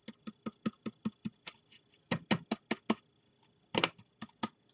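Quick run of light plastic clicks and taps, about six or seven a second with a brief pause about three seconds in, as a plastic powder tray is tapped to knock leftover gold embossing powder back into its small jar.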